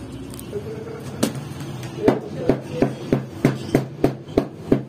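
Flatbread dough being slapped between a baker's palms: a quick regular run of sharp slaps, about three a second, starting about two seconds in, with a steady low hum underneath.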